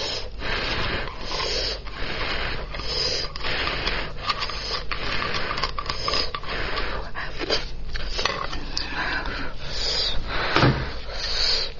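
Close-miked eating sounds of a spicy lamb's head: wet chewing and mouth noises with many short clicks and smacks, and the squelch of gloved hands working the soft meat.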